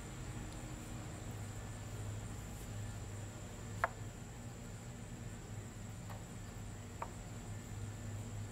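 Steady high-pitched insect chorus over a low hum. There is one sharp click about four seconds in and two fainter clicks near the end.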